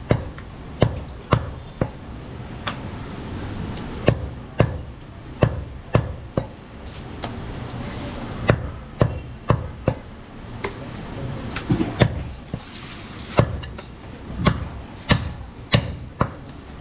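Heavy butcher's cleaver chopping goat meat on a wooden log chopping block: a run of sharp thuds, about one or two a second, with short pauses while the pieces are moved.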